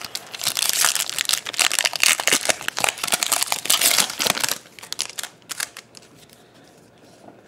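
A trading-card pack's wrapper being torn open and crinkled by hand, a dense crackling that fades out after about four and a half seconds.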